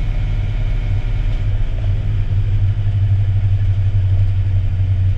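Fire engine's diesel engine and road noise, a steady low drone heard inside the cab while cruising on the highway.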